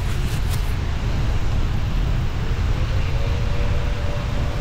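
Car driving on the road: steady road rumble and engine noise, with a faint engine tone that rises a little about three seconds in.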